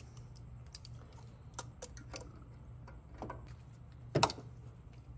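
Scattered light clicks and taps of a small boost-line hose being worked off its fitting on top of a 2.3-litre EcoBoost turbocharger, with one louder click about four seconds in, over a faint low hum.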